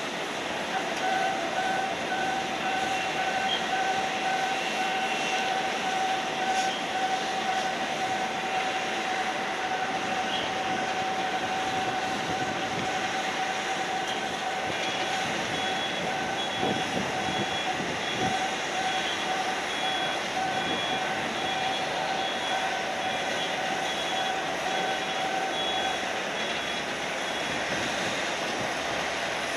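Airbus A330 airliner under pushback by a tow tractor: a steady jet whine over a broad rushing noise, with faint evenly pulsing beeps. The whine stops near the end.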